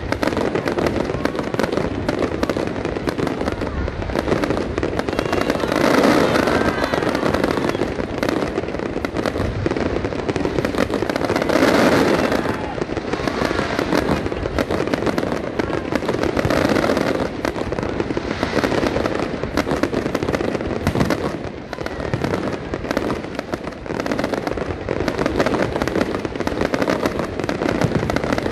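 Aerial fireworks in a continuous barrage: shell bursts and dense crackling with no let-up, swelling loudest about six and twelve seconds in.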